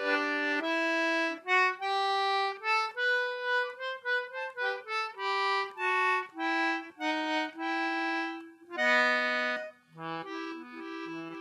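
Instrumental interlude of a 1917 song recording: instruments play the melody as a run of held notes, then about ten seconds in a softer accompaniment with short alternating bass notes takes over.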